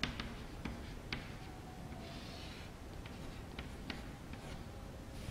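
Chalk writing on a chalkboard: a string of short light taps and scrapes as letters are written, with a longer scratching stroke about two seconds in.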